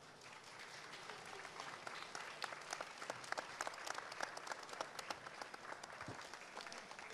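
Crowd applauding, a dense patter of hand claps that swells over the first couple of seconds and thins out near the end.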